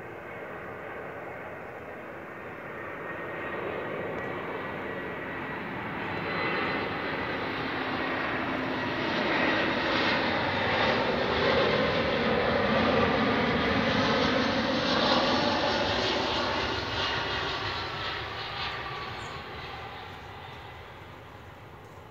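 Airbus A320-214's CFM56 jet engines at approach power as the airliner flies low past on final. The engines grow steadily louder to a peak about two-thirds of the way through, with a whine that drops in pitch as the aircraft goes by, then fade as it heads down the runway to land.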